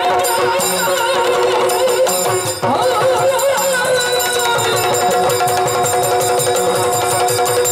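Yakshagana ensemble music: fast chende and maddale drumming over a steady held drone.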